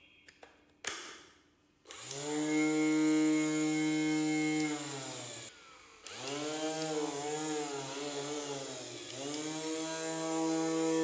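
Small DC775 electric motor of a homemade PVC angle grinder whining up to speed about two seconds in. It slows down and stops around five seconds, starts again a second later with its pitch wavering, then settles into a steady whine. A brief rush of noise comes about a second in.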